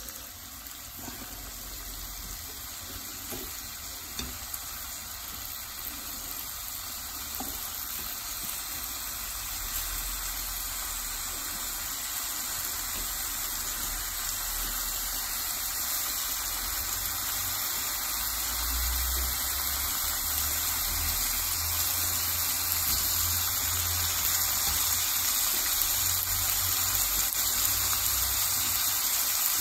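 Thinly sliced pork sizzling in a frying pan, the sizzle growing steadily louder as the meat starts to cook.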